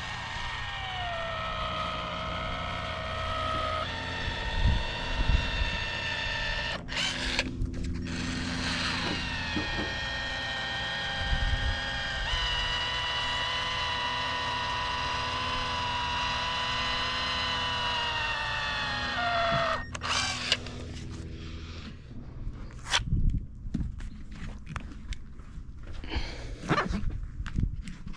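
Battery-powered tool's electric motor whining in two long runs, the first about seven seconds and the second about twelve, its pitch sagging a little under load before it stops. Scattered knocks and clatter follow near the end.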